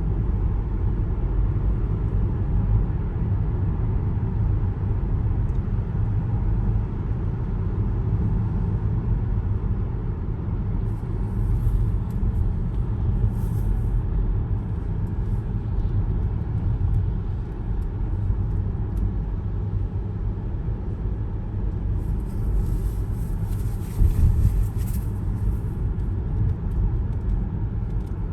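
Car driving along a road: a steady low rumble of tyres and engine. Twice a hiss rises over it for a few seconds, the second time with a brief louder jolt.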